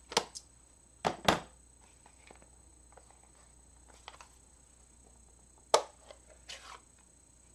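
Plastic Stampin' Pad ink pad cases being handled on the craft desk: a few scattered light clicks and taps, the sharpest one a little before the end.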